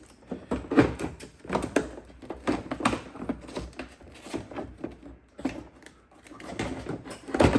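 Hard plastic parts of a car tailgate's trim and light assembly being handled and worked loose: a string of irregular clicks, knocks and scrapes.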